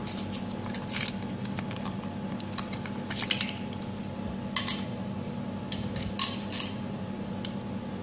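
Clear plastic blister packaging being opened and handled: scattered sharp plastic clicks and crackles, singly and in small clusters a second or two apart, over a steady background hum.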